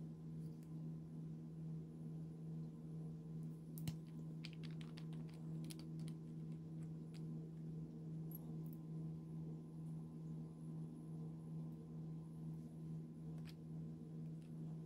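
Slime being worked by hand, giving a cluster of small sharp clicks and pops about four to seven seconds in and a few more later, over a steady low hum.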